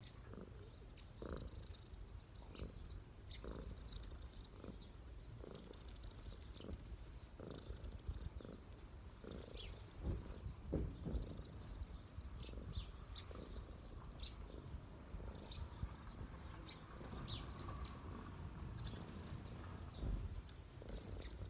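Ginger cat purring steadily close to the microphone, the purr swelling and easing with each breath at roughly one pulse a second: a relaxed, contented cat being stroked.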